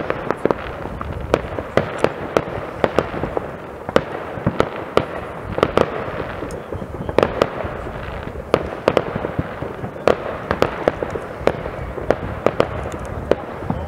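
Fireworks going off at many points across a town, heard from afar. A constant rumble of distant bangs is broken by frequent sharper cracks and pops, several a second, at uneven intervals.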